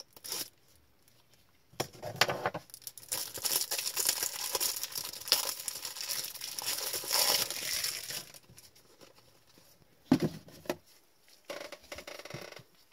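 Plastic packaging crinkling and rustling as it is handled for several seconds, then a single knock, followed by a few softer handling sounds.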